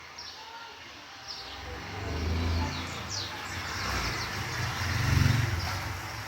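A motor vehicle passing, its engine noise swelling twice, loudest about five seconds in, then fading. Small birds chirp high and briefly throughout.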